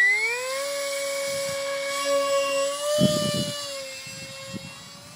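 Stryker F27Q flying wing's electric motor and pusher propeller at full throttle. It whines up in pitch during the first half-second as the plane leaves the hand, holds a steady high whine, then grows fainter from about four seconds in as the plane climbs away.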